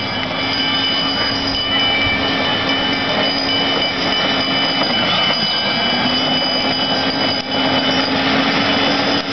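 Golf cart running steadily: a continuous motor drone with a constant whine over it.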